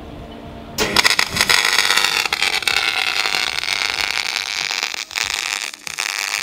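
MIG welder arc crackling steadily as a bead is run on stainless steel. It strikes up about a second in and breaks off briefly a few times near the end.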